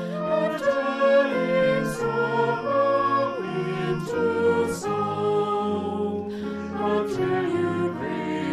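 A mixed choir of men's and women's voices singing a slow hymn in parts, with brass accompaniment.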